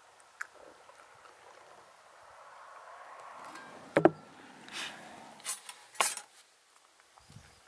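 Two small glass tea glasses set down on a table with a sharp knock, then a few sharp metallic clinks from metal kebab skewers being handled.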